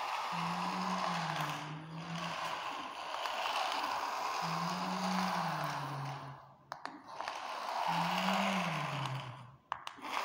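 Toy remote-control car's small electric motor and plastic gears whirring as it drives over a tiled floor, with a low wavering tone that repeats every few seconds. The whirring cuts out briefly twice, with clicks, near the middle and near the end.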